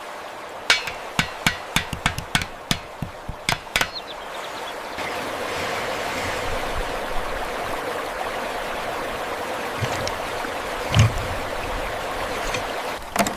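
A quick run of about a dozen sharp knocks over the first four seconds, then a steady sound of running water, with a dull thump about eleven seconds in and one more knock near the end.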